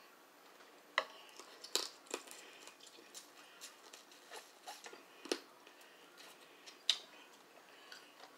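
Crab leg shells being snapped and picked apart by hand: a string of sharp cracks and clicks with smaller ticks between, the loudest about a second in, near two seconds, past five seconds and near seven seconds.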